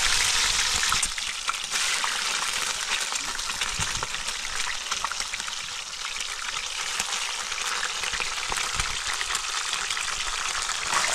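Trout frying in a pan of hot oil: a dense, crackling sizzle, louder for about the first second and then settling to a steady level.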